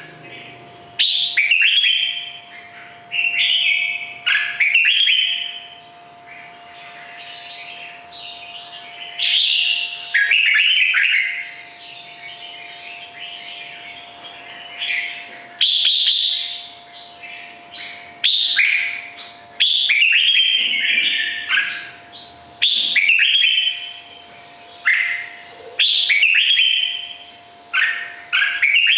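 Red-whiskered bulbul singing: loud, clear, warbling phrases of about a second each, repeated every one to three seconds with quieter chatter between.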